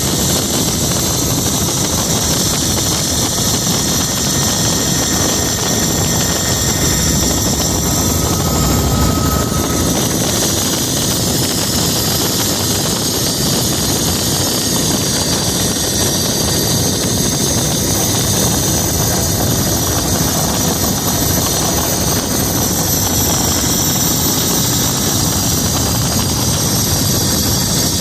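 Helicopter in cruising flight heard from on board: steady engine and rotor noise with a thin, steady high whine above it.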